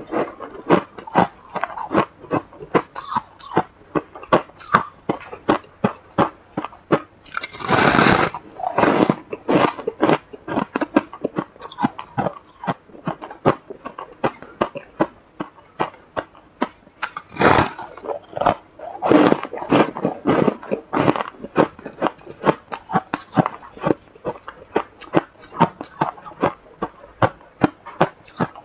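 Close-up crunching of freezer frost being chewed: quick, crisp crackles several times a second, with a few louder bites off the frost block, around 8 seconds in and twice more near the middle.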